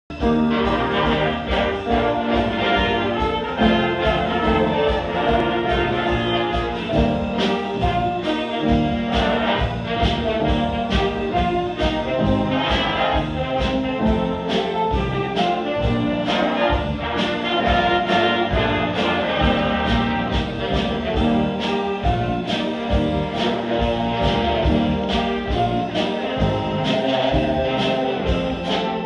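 Student jazz band of saxophones, trumpets and trombones playing together, with a steady beat about twice a second.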